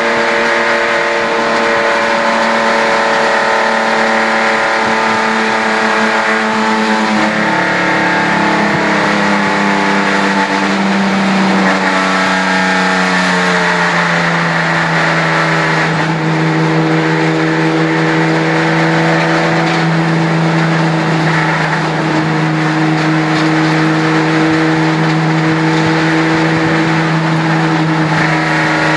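HQ Holden race car's engine heard from inside the cabin, running at a steady pitch that drops about seven seconds in. The tone wavers and glides as other cars' engines are heard alongside, then settles to a lower steady note as the car slows.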